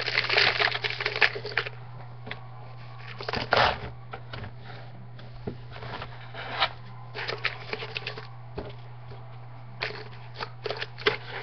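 Paper rustling and crinkling with small irregular clicks as dry rat food is put into a paper-wrapped cardboard toilet-paper tube, over a steady low hum.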